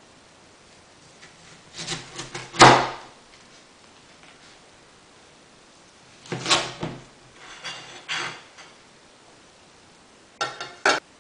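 Broad-bladed kitchen knife cutting through a hami melon half, the blade knocking on a plastic cutting board as each cut goes through. Three short bouts of cutting, the loudest knock about three seconds in.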